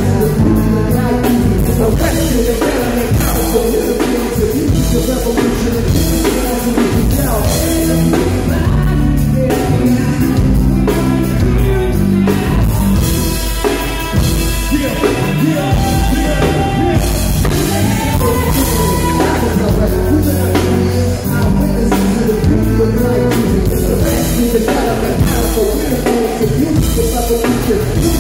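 A live band playing through the PA at a sound check: drum kit, bass and guitar with singing, loud and continuous.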